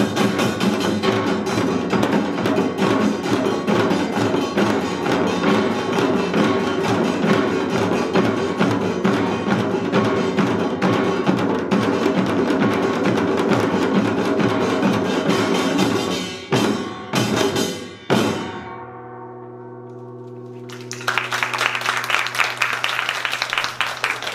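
Korean pungmul percussion ensemble of janggu hourglass drums, buk barrel drums and gongs playing a fast, dense rhythm. After about sixteen seconds it breaks into a few last strokes, and a large jing gong rings on alone. Applause rises near the end.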